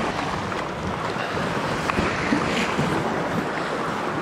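Sea waves washing against the shore with wind buffeting the microphone, a steady rushing noise. A single sharp click sounds about halfway through.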